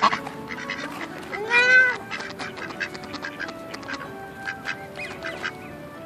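Ducks calling: one loud, drawn-out quack about a second and a half in, rising and then falling in pitch, over softer short calls from the flock.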